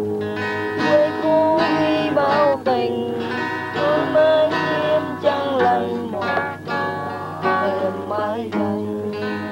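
A song sung in Vietnamese over plucked acoustic guitar.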